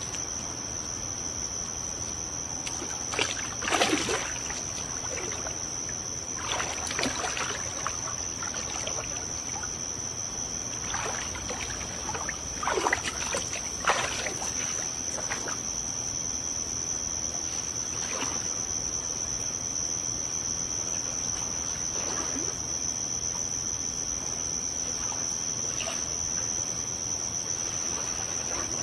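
Soft water splashing and swishing from arms moving slowly through a swimming pool, in a handful of short bursts, the strongest about four seconds in and around thirteen to fourteen seconds in. Under it runs a steady high-pitched chirring of crickets.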